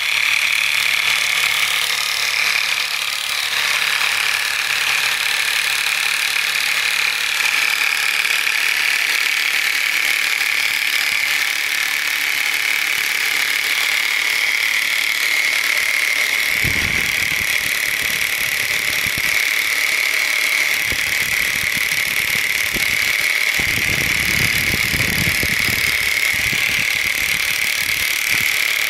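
Electric demolition hammer running a wide scraper blade across a concrete floor: a steady, high-pitched motor and hammering rattle. A little past halfway, rougher lower spells come in as the blade bites into the coating on the concrete.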